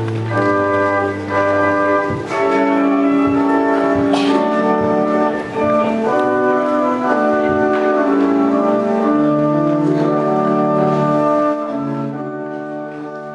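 Organ music: slow sustained chords changing every second or so, fading away over the last couple of seconds.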